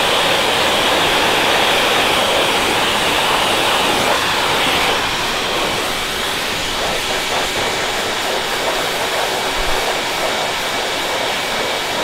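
Air blower blasting through a flexible hose onto a mounted duck's feathers: a steady rushing of air that eases slightly about five seconds in. The blast fluffs up and dries the down feathers so they are not matted down.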